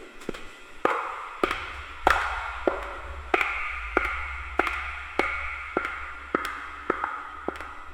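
Footsteps on a hard hallway floor at a steady walking pace, a little under two steps a second, each step echoing.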